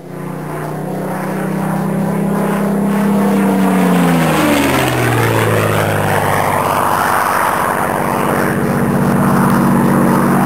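Piston-engined propeller aircraft flying past: the engine note grows louder over the first few seconds, drops in pitch about four seconds in as it passes, then holds steady.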